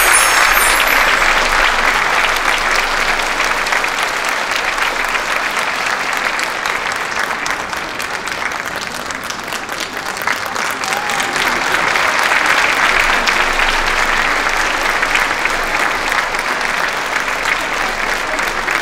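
Theatre audience applauding after the dance ends, a dense clapping that is loudest at first, eases off around the middle and swells again a few seconds later.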